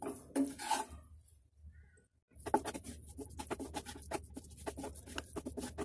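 Wooden spatula scraping and tapping against a non-stick frying pan as fried rice is stirred and turned. A quick, uneven run of scrapes and knocks starts a little over two seconds in.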